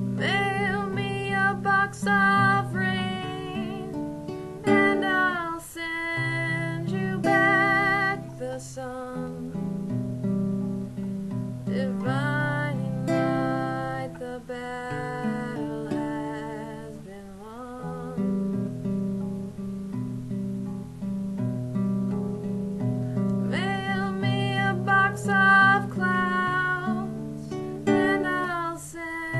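A woman singing to her own classical guitar accompaniment, the guitar chords going on throughout. The voice drops out for a long stretch in the middle, leaving the guitar alone.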